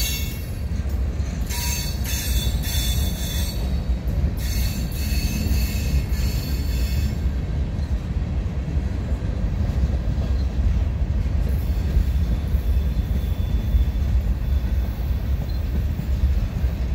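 Freight train cars (covered hoppers, then a tank car and boxcars) rolling past close by: a steady, loud rumble of steel wheels on the rails. High-pitched wheel squeal comes and goes during the first seven seconds or so.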